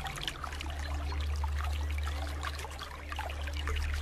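Rain falling, heard as many separate close drops, over a low steady drone.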